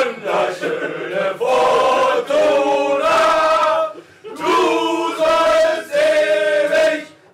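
A group of voices singing a short chant together in chorus, on held notes, in two phrases with a brief break about four seconds in.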